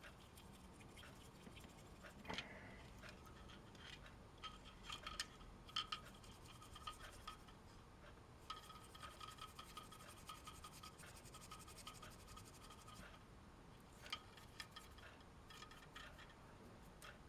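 Faint, intermittent scratching and scrubbing of a small tool against a circuit board, in several stretches with a few light clicks: rust being cleaned from between the pins of a solar LED garden light's board.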